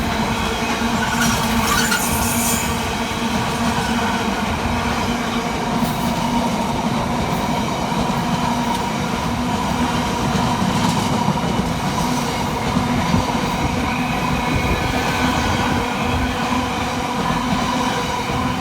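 Long container freight train hauled by two Class 90 electric locomotives, its wagons rolling through the station at steady speed: a continuous loud rolling noise with sustained tones over it.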